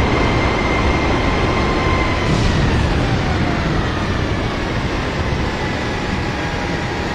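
Airliner cabin noise: a steady rumble with a high jet-engine whine that slowly falls in pitch.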